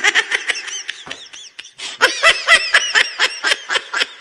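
High-pitched laughter: a rapid string of short laughs, several a second, that eases off and then grows louder again about two seconds in.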